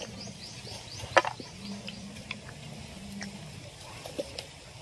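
Quiet outdoor background: a rapid run of short, high, falling chirps over the first second or so, a faint low hum that comes and goes, and a few sharp clicks, the loudest about a second in.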